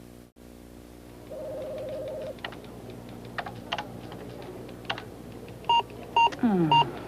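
Keys clicking on a computer keyboard, with a steady electronic tone lasting about a second early on, then three short, loud electronic beeps near the end and a falling electronic tone: the error beeps of a computer that won't do what it is told.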